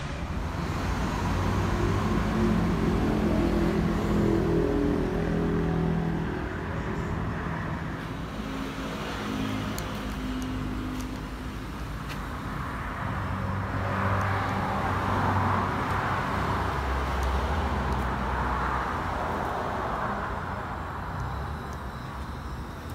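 Motor vehicles running in passing road traffic, a low steady rumble that swells for several seconds about two-thirds of the way through.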